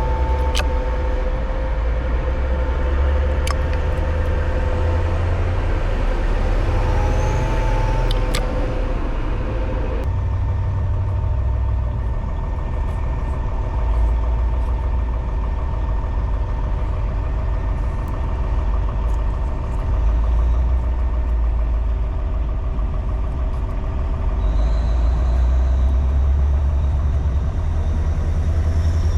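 Heavy machinery's engine running with a deep, steady rumble and a steady whine above it, with a few sharp clicks early on. The sound changes abruptly about ten seconds in.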